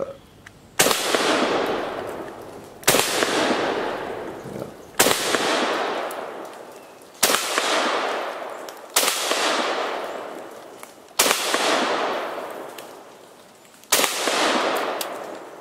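A Russian SKS semi-automatic rifle in 7.62×39 fired seven times, single shots about two seconds apart, each shot followed by a long fading echo.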